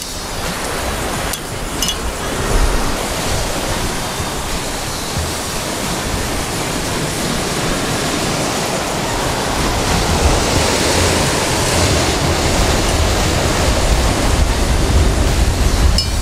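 Ocean surf washing over the lava rocks: a steady rushing noise that gets a little louder in the second half.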